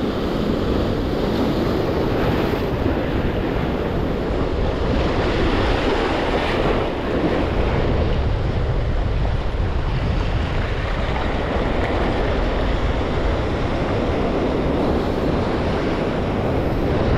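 Ocean surf breaking and washing over jetty rocks in a steady rush, with wind buffeting the microphone.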